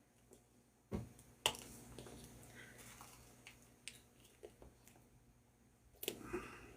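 Faint clicks and taps of hands handling a laptop's screen assembly and its small connectors: two sharper knocks about a second in, scattered small ticks, and a short cluster of clicks near the end.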